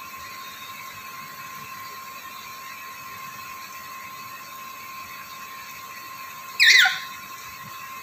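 One short, shrill lory call about two-thirds of the way through, sweeping steeply down in pitch, over a steady high-pitched hum.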